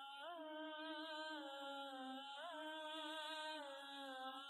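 Background score: a single wordless voice humming long held notes, sliding up briefly twice, once just after the start and once about halfway through.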